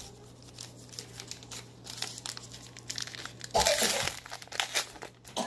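Crinkling of a baseball card pack's wrapper being handled and torn open, with a louder burst of crackling about three and a half seconds in.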